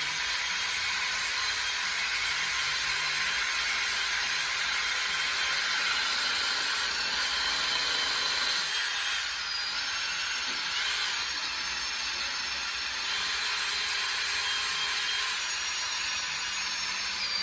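Power drill running continuously with a tool working against the rusty steel of a small one-bottom plow, a steady rough scrubbing noise.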